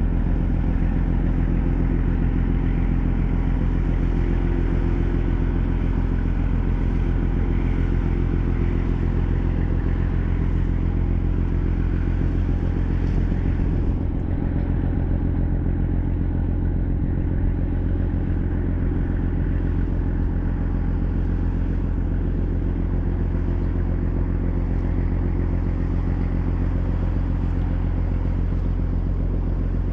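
A ferry ship's diesel engine running steadily, a low drone that holds one pitch throughout.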